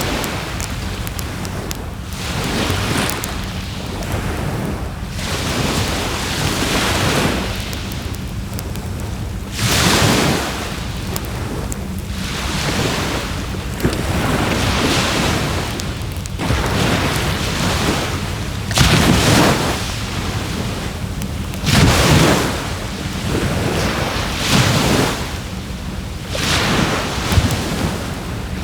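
Waves washing onto the shore in surges every two to three seconds, over a constant low rumble of wind on the microphone. A wood campfire crackles faintly with small sharp pops.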